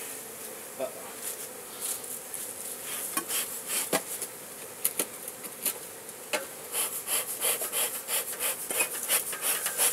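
Honey bees buzzing steadily around an open hive. Scattered sharp clicks and knocks of hive equipment being handled run over the buzzing and come quicker near the end.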